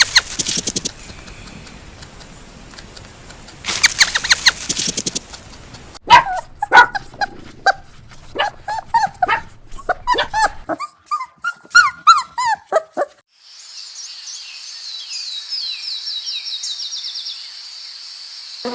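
Several animal recordings in turn. First come two short bursts of rapid clicking pulses. Then a quick run of short yelping calls, each dropping in pitch, from about six to thirteen seconds, and finally a high steady chirring with fast regular ticks, like insects, through the last few seconds.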